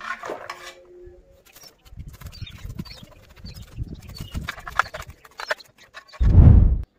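Scales being scraped off a large fish lying in a metal bowl: a run of quick, irregular rasping strokes and knocks against the bowl. They end in one loud low thump just after six seconds.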